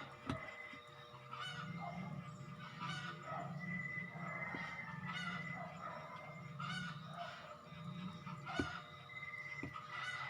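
Background music with a steady beat, with a few sharp clicks.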